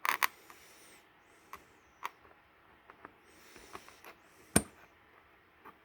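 Scattered light clicks and knocks from things being handled, with one sharper knock about four and a half seconds in.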